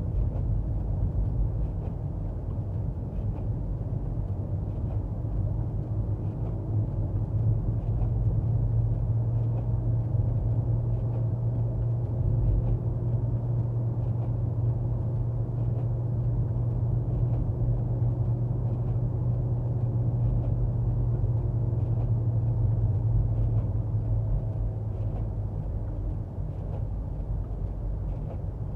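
Car engine and road noise heard from inside the cabin while driving, a steady low drone. Faint ticks recur about every second and a half.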